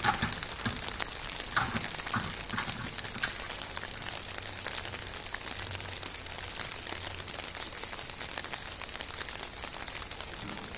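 Steady outdoor hiss with scattered crackles and ticks, thickest in the first few seconds, over a faint low hum.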